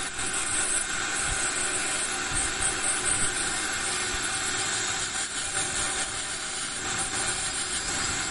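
Dental ultrasonic scaler and saliva-ejector suction running together: a steady hiss and whine of water spray and air being sucked from the mouth as tartar is scaled off the lower front teeth.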